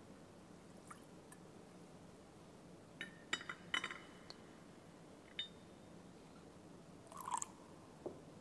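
Faint, sparse clinks and taps of a gold chalice and other altar vessels being handled on the altar: a cluster of ringing clinks about three to four seconds in, a single one a little later, and a short clatter near the end.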